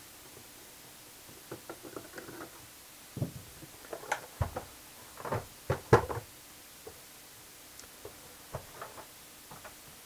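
Scattered knocks and clatters as an Alesis V49 MIDI keyboard is handled and turned over on a towel-covered workbench, loudest about four to six seconds in.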